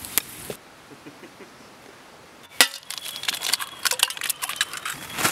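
Eggs being cracked against the rim of a steel cooking pot: a sharp tap, then a quick run of small clinks and taps on the metal.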